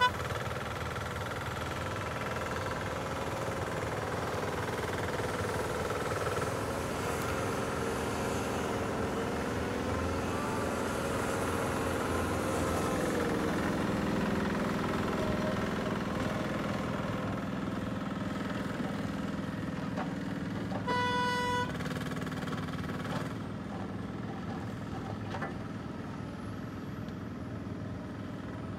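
Swing yarder's engine running steadily while the grapple carriage travels down the skyline, with a sharp knock at the very start. One short horn toot sounds about three-quarters of the way through.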